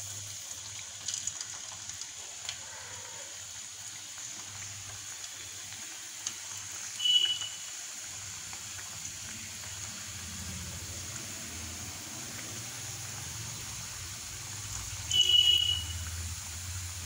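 Potato samosas deep-frying in hot oil, a steady sizzle of bubbling oil. Twice, about halfway through and again near the end, a short loud high ringing note cuts in.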